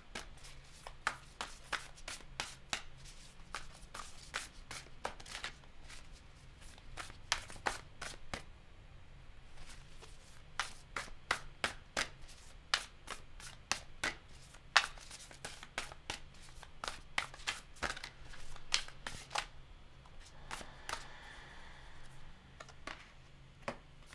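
A Moon Child tarot deck being shuffled by hand before cards are drawn for a spread: a run of quick papery snapping clicks, a few a second, with a short pause about nine seconds in.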